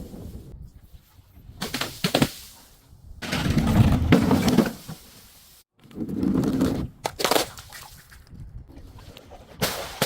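Brittle objects being crushed: several bouts of crunching and sharp cracking, the longest lasting about a second and a half, with separate snaps between them and one last crack near the end.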